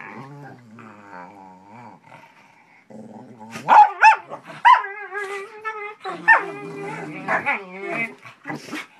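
A shepherd dog growling and grumbling in annoyance at a pestering puppy: a low, wavering growl at first, then from about three and a half seconds in, louder yowling, talking-style barks that rise and fall in pitch.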